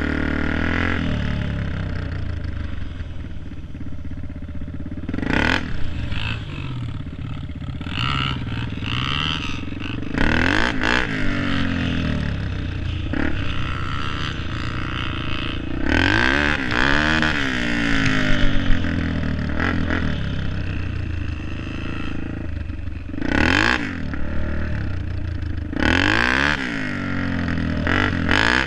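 Dirt bike engine heard from the rider's helmet, revving up and dropping back over and over as the bike accelerates and shifts, with bursts of wind noise rushing over the microphone.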